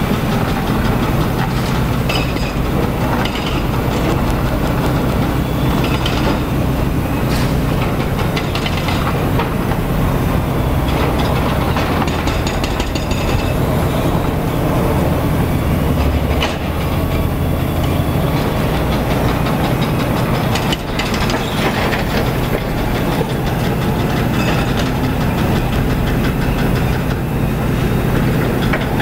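Construction machinery: diesel excavator engines running, with the rapid, steady pounding of an excavator-mounted hydraulic breaker hammering rock.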